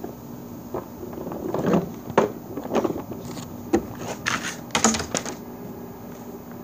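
Scattered knocks, clicks and scuffs of someone moving about and handling things close to the microphone, about ten in all and uneven in loudness, over a steady low hum.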